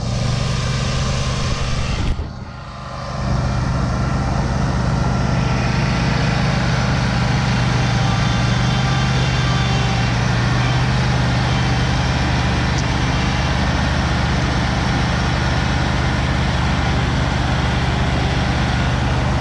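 Commercial mower engines running steadily at a constant speed, close by, while a zero-turn mower sits on the trailer and a stand-on mower stands beside it. The hum drops off briefly about two seconds in, then carries on at the same pitch.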